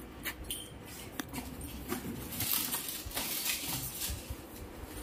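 Plastic wrapping on a large package crinkling and rustling as it is carried, with scattered light taps and clicks; the crinkling is densest around the middle.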